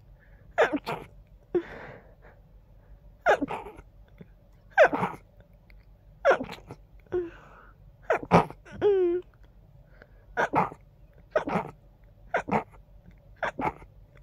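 A rapid series of about a dozen short, stifled sneezes from a congested person, roughly one a second, some coming in quick pairs. About nine seconds in, one sneeze is followed by a brief falling squeak.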